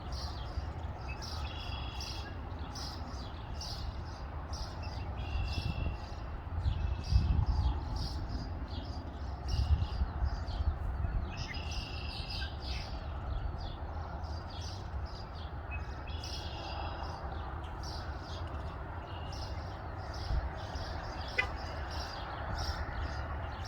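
Several songbirds chirping, with short repeated calls coming one after another, over a steady low rumble that swells briefly twice.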